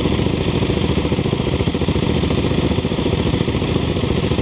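Dirt bike engine running steadily at low revs, a rapid even chatter of firing pulses with no revving.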